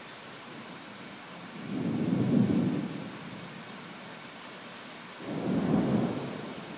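Thunder rumbling twice over steady rainfall, once about two seconds in and again about five seconds in, each rumble lasting about a second.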